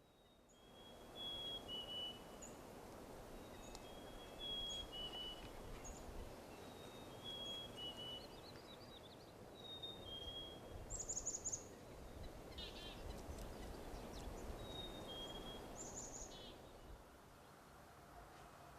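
Wild birds singing over a steady outdoor hiss. The main sound is a short phrase of two or three clear, falling whistled notes, repeated every few seconds. A few brief high trills come in between.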